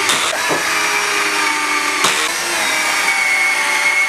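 Cordless drill driving pocket-hole screws into a 2x4 frame: the motor runs with a steady whine that shifts slightly in pitch as the screws load and seat, with a few sharp clicks.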